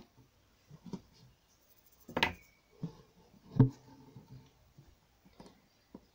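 Hand embroidery at a hoop: irregular scrapes and soft taps of fingers, needle and silk thread on taut fabric. A sharp, briefly ringing click comes about two seconds in, and a louder knock follows about a second and a half later.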